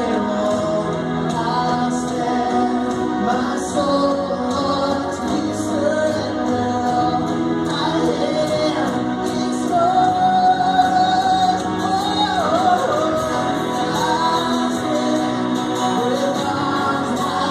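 Music with singing: a vocalist holding and bending long notes over steady band accompaniment.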